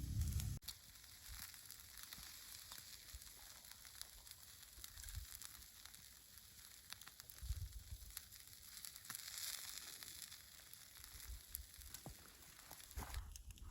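Faint, steady sizzling hiss with light crackles throughout. A louder low rumble cuts off sharply just after the start, and a few soft low thumps come later.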